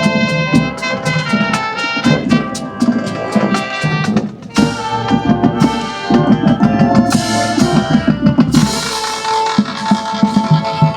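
High school marching band playing: brass section over a drumline beating a steady rhythm. In the second half the brass holds long chords under a wash of cymbals.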